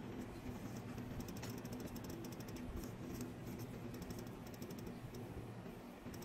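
Quick, faint clicking and tapping in short runs as fingers press and knead a rubber mold disc inside its metal mold ring, over a steady low hum.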